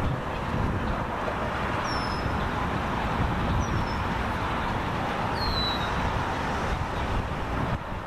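Steady traffic noise, with a few short, high, falling chirps from a small bird: three of them, the loudest about five and a half seconds in.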